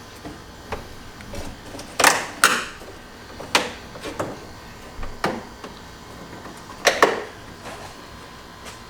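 Irregular sharp clicks and knocks, about seven of them, loudest around two seconds in and again near seven seconds: hand tools and a plastic wheel-well cover being worked loose.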